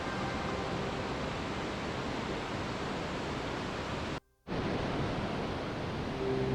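Steady, even hiss of pink noise from a meditation soundtrack, with no music tones, cut by a sudden drop to silence for about a quarter of a second about four seconds in.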